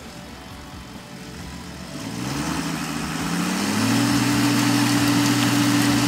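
Pecan tree shaker's engine running low, then revving up about two seconds in, its pitch rising for a couple of seconds before holding steady and loud as the shaker head works the trunk to shake the pecans down.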